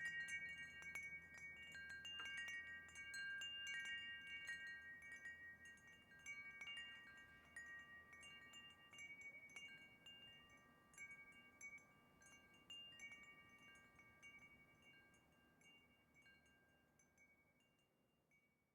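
Wind chimes ringing, several pitched tones struck at irregular moments and ringing on. The strikes grow sparser and the sound fades gradually away toward the end.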